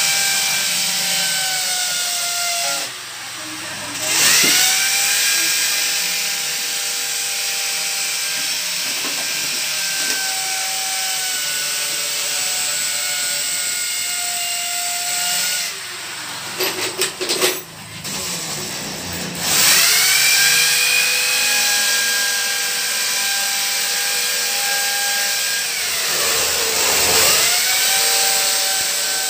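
An electric power tool's motor running in long stretches. It cuts out twice and spins back up with a rising whine each time. In the second gap comes a quick cluster of knocks, and near the end the motor slows briefly and picks up again.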